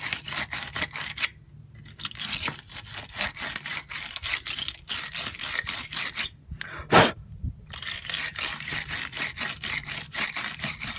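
Battery terminal-cleaning brush scraping inside a dirty, corroded battery cable clamp in rapid back-and-forth twisting strokes, about four a second, clearing it down to bare metal for a better contact. The strokes pause briefly twice, and a sharp knock comes about seven seconds in.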